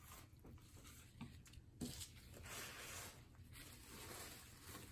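Faint rustling of thin paper napkin being handled, with a couple of small taps; near-quiet overall.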